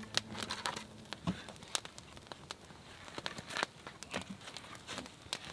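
Campfire crackling with scattered sharp pops, and a few dull wooden knocks as split planks are set onto a pole table frame.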